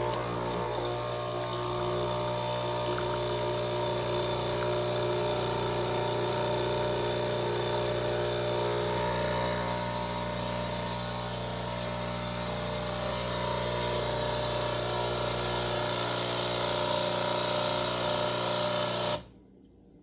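Nespresso Inissia C40 espresso machine running a brew cycle, its vibratory pump giving a steady buzzing hum as it pushes water out through the spout into a glass. The hum cuts off suddenly near the end when the cycle finishes.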